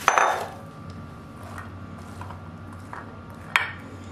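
Boiled chickpeas being handled in a glass baking dish: a short clatter at the start, then a few light taps. About three and a half seconds in, a plastic spoon strikes the glass with one sharp click.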